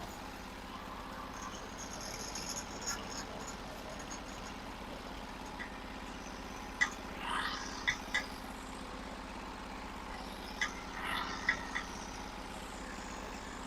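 Portable sawmill's engine idling steadily between cuts, with a few light clicks and short scraping sounds in the second half.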